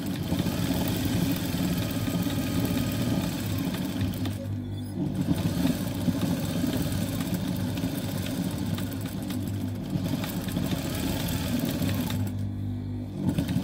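Industrial lockstitch sewing machine (Typical) stitching denim in machine darning, running in long runs with short stops about four and a half seconds in and again near the end.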